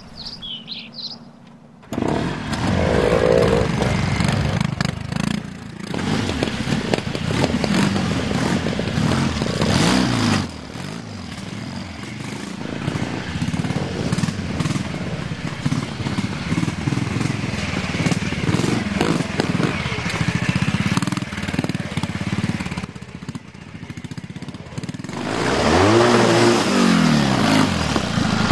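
Classic British trials motorcycles ridden over rough ground, their engines revving up and down. The engine sound starts about two seconds in after a brief quieter spell, with a clear rise and fall of revs near the end.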